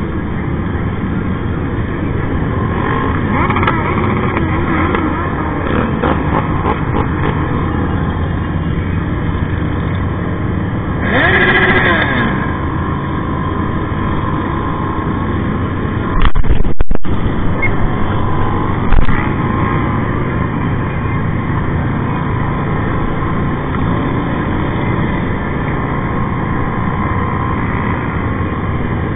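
Motorcycles running in a large group ride, heard from a bike-mounted camera: steady engine drone mixed with wind rush on the microphone. A nearby engine swells briefly with a rise and fall in pitch a little before the middle, and a loud burst of noise hits a little past the middle, with a shorter one a few seconds later.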